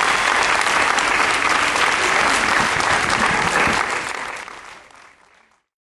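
Audience applauding, a dense patter of clapping in a hall, fading out about four seconds in.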